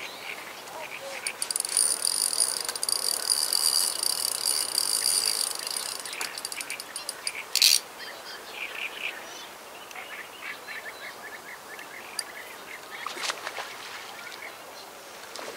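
Insects chirping in a steady, high-pitched pulsing trill through the first half, with a brief loud rasp a little past halfway. Quicker bird-like chirps follow later.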